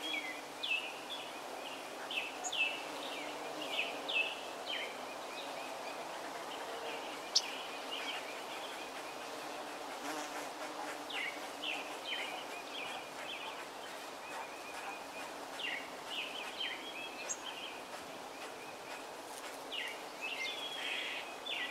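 Swarm of bees buzzing steadily in a flowering holly tree, a dense continuous hum. Birds chirp over it in short falling notes, in clusters, with one sharp tick about seven seconds in.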